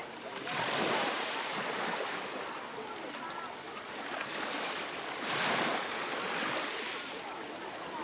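Small sea waves washing up on a beach, surging twice: about a second in and again about five seconds in. Faint voices of people in the background.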